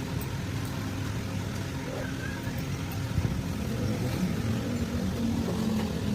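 Toyota Hilux 2KD four-cylinder turbodiesel engine running steadily.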